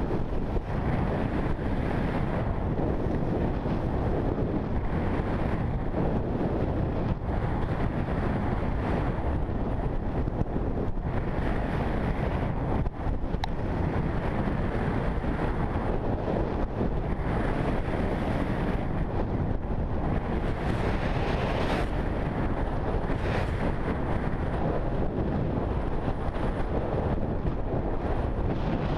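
Wind buffeting a GoPro camera's microphone on a downhill ski run, a steady rumble. Skis hissing over the snow, swelling now and then with the turns.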